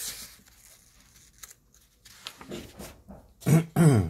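Paper rustle as a page of a softcover price-guide book is handled at the start. Near the end come two short, loud vocal sounds, about half a second apart, each falling in pitch.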